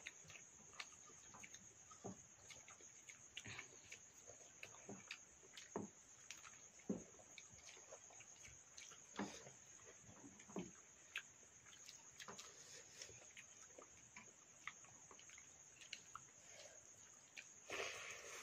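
Quiet eating sounds of two people eating watery rice by hand from steel bowls: scattered wet smacks, chewing clicks and the odd tap. A steady high insect trill, typical of crickets at night, runs underneath.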